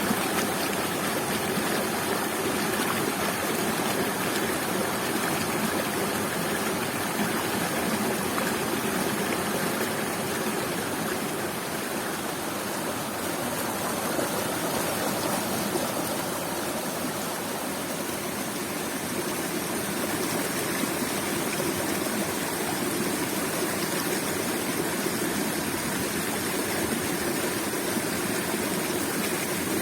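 Waterfall and river water rushing steadily, an even, continuous noise.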